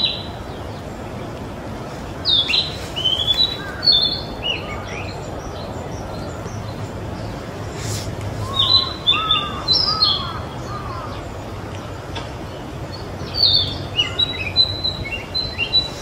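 A young male narcissus flycatcher singing: three short phrases of quick, high, gliding notes, each about two seconds long, a few seconds apart.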